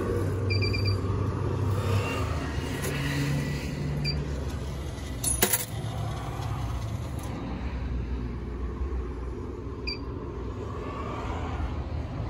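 Low steady rumble of a car, with a few short high pings and one sharp click about five seconds in.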